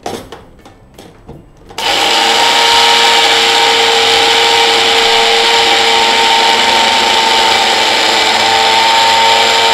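Small electric grinder starting about two seconds in after a few clicks, then running steadily at full speed with a constant whine as it grinds roasted sesame seeds to powder.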